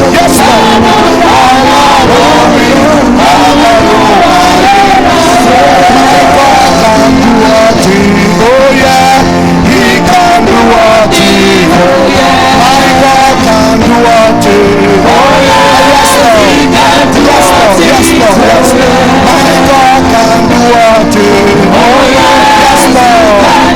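Loud live church worship music: sustained instrumental accompaniment with a voice singing freely over it.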